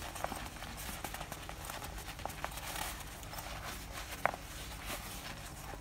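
Hands handling a padded polyester fabric pouch: faint rubbing and light scattered taps, with one sharper tap about four seconds in.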